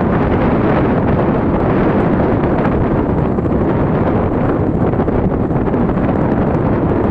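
Strong wind buffeting the microphone: a loud, steady, dense noise that lasts throughout.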